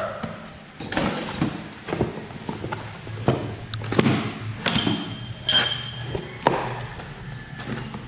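A cardboard box is handled and opened on a tile floor: a string of irregular knocks and scrapes, with packaging rustling and a brief ringing clink about five and a half seconds in.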